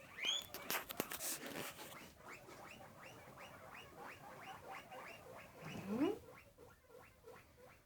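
Guinea pigs wheeking: a loud rising squeal at the start, then a quick run of short rising squeaks, about three a second, with a louder, lower rising call about six seconds in. Rustling and clicks in the first two seconds. The wheeking is begging for food.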